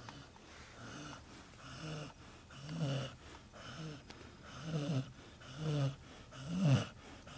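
Sleeping dog snoring, with rhythmic snores about once a second and the loudest near the end.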